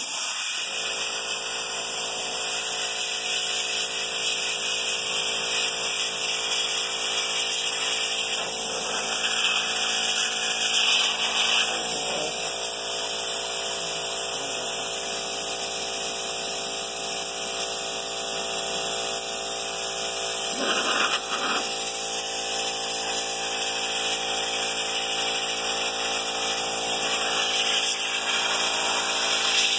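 Handheld soda blaster hissing steadily as it sprays baking-soda media against wood to strip off dried-on paint stripper residue, the hiss swelling briefly now and then. A steady motor hum runs underneath.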